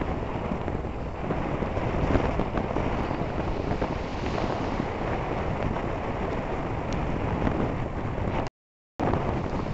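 Wind buffeting the camera's microphone: a steady, fluctuating low rush of noise. The sound cuts out completely for about half a second near the end.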